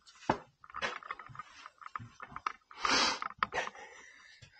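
Irregular scuffing, scraping and knocking of shoes and gear against rock while someone moves through a narrow cave passage, with a louder scrape about three seconds in.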